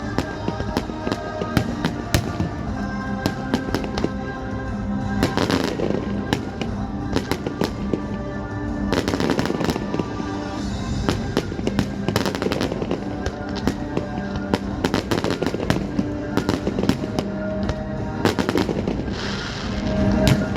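Aerial fireworks bursting in rapid succession, with thick runs of crackle about five seconds in, about nine seconds in and near the end, over a music soundtrack.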